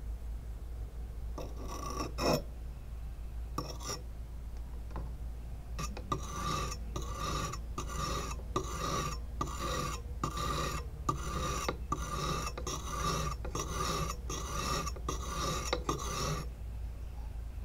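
Wet sharpening stone rubbed back and forth along the blade of a hooked rubber-tapping knife, each stroke a gritty scrape. A few scattered strokes at first, then about six seconds in a steady run of about two strokes a second, which stops shortly before the end.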